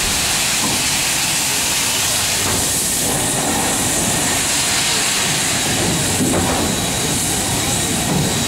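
LMS Princess Royal class 4-6-2 steam locomotive 'Princess Elizabeth' with a steady hiss of steam escaping low at the front from its cylinder drain cocks.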